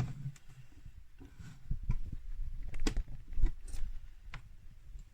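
A sharp plastic click as the coffee maker's button is pressed, then a scattered series of light clicks and low knocks at irregular intervals.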